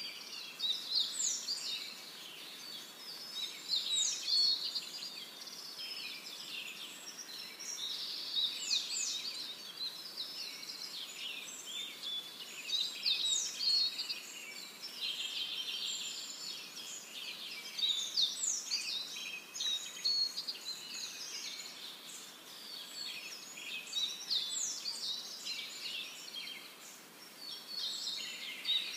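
Birds calling and chirping in a dense, steady chorus of high trills and twitters, with a sharp downward-sweeping call recurring every four to five seconds.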